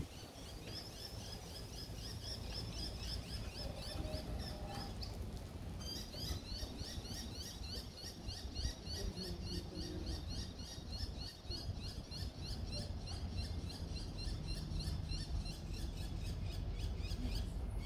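High-pitched chirping repeated rapidly and evenly, several chirps a second, in two long runs with a short break about five seconds in, over a low steady background rumble.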